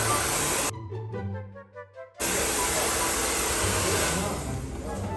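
Handheld hair dryer blowing with a loud, even rush of air. It cuts out abruptly just under a second in, comes back about a second and a half later, and fades toward the end, with background music underneath.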